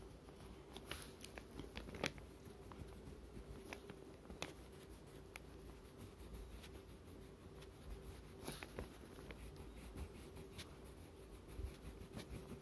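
Wax crayon rubbing over paper to fill in a coloured area: faint scratching with scattered light ticks and taps.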